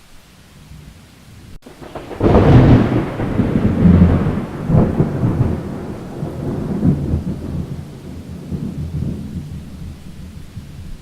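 A thunderclap breaking suddenly about two seconds in over the hiss of heavy rain, then rolling rumbles that slowly die away.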